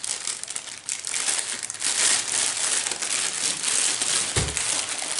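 A plastic bag of skincare products crinkling and rustling as it is pulled and torn open by hand, with one soft thud about four seconds in.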